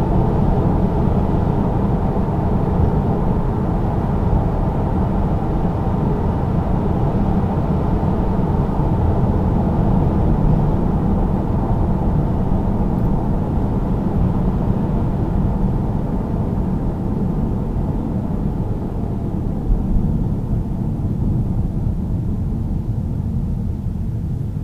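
Inside the cabin of a BMW F30 330d at speed: the steady drone of its 3.0-litre straight-six turbodiesel mixed with road and tyre noise. The noise eases gradually toward the end as the car slows.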